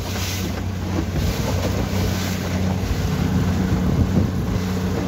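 Motorboat engine running steadily under way, a low even hum, with wind buffeting the microphone and water rushing past the hull.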